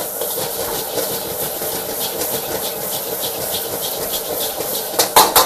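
Fried rice sizzling in a wok with a steady hiss and light scraping. About five seconds in, a metal spatula starts striking and tossing in the wok in quick, even strokes.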